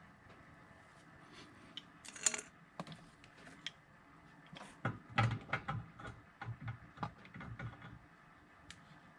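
Light clicks and clinks of tools and brass plumbing fittings being handled, with a brief louder scrape about two seconds in and a run of irregular clicks from about five to eight seconds.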